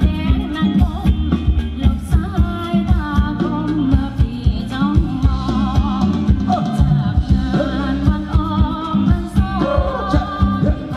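Live Thai ramwong band music, loud and amplified: a singer's voice over a steady drum beat and heavy bass.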